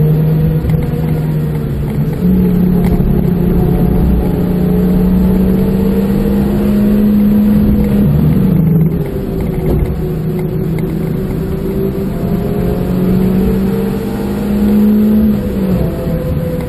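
Suzuki Swift Sport Stage II's 1.6-litre four-cylinder engine heard from inside the cabin, running hard on track. Its pitch rises and falls with the throttle, steps up sharply about two seconds in and drops near the end, over a rumble of road and tyre noise.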